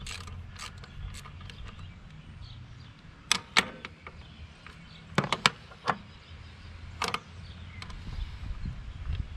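Hand tools working on motorcycle hardware: a few light ratchet-like clicks at first, then a scattering of sharp metal clinks as a ratchet wrench is fitted to the regulator's mounting nut and set down on the steel frame.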